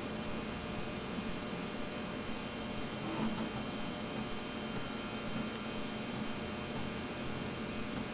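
Steady electrical mains hum and buzz with hiss, with a faint brief sound about three seconds in.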